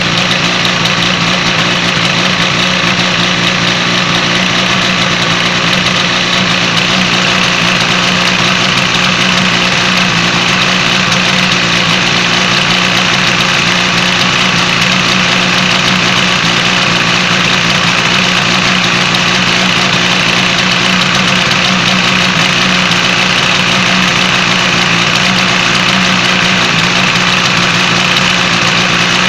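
Yamaha TZR250 (3MA) two-stroke parallel-twin engine idling steadily.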